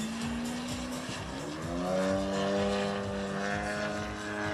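Engine and propeller of a radio-controlled Edge 540 aerobatic model plane in flight. A steady pitched note fades briefly about a second in, then rises in pitch and gets louder, holding the higher note.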